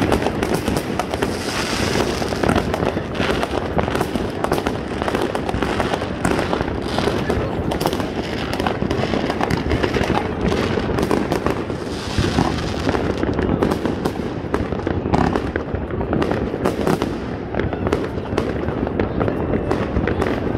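New Year's fireworks going off continuously: a dense run of bangs and crackles without a break, with voices underneath.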